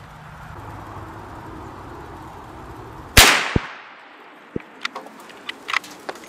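A single shot from a bolt-action Ruger American Ranch rifle in .350 Legend firing 145-grain full metal jacket, a sharp report about three seconds in that rings out and fades over about a second. After the shot come several short sharp clicks as the bolt is worked.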